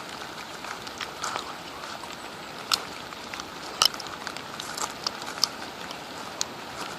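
Steady rain falling, with scattered sharp ticks of drops landing close by; the two loudest come about three and four seconds in.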